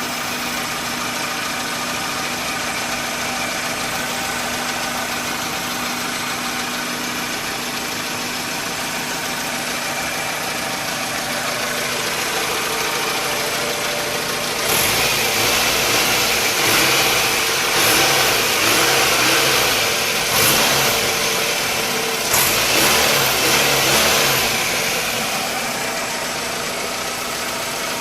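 Toyota Camry four-cylinder petrol engine running steadily at idle. About halfway through it grows louder and uneven with bursts of noise for around ten seconds, then settles back.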